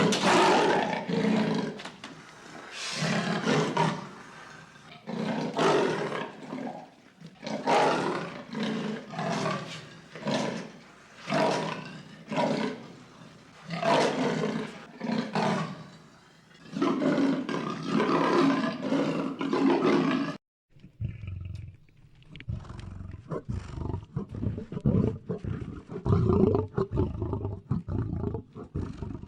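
Lion roaring: a long bout of loud, repeated roars about a second apart. About two-thirds in, the sound cuts abruptly to a lower, denser run of short calls.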